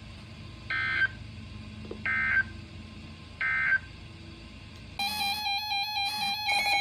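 Emergency Alert System end-of-message data signal: three short, identical bursts of two-pitch digital data tone, about a second and a half apart, closing a National Weather Service warning. About five seconds in, a louder electronic alert tone of several steady and stepping pitches begins.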